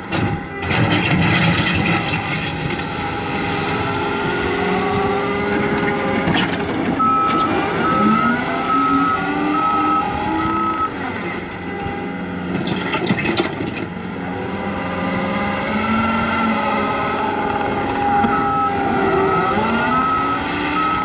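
John Deere 335P skid steer's diesel engine working under load, its pitch rising and falling as the machine drives and lifts. A backup alarm beeps in a steady pattern about a third of the way in and again near the end, and a few sharp clanks come about a quarter and two thirds of the way through.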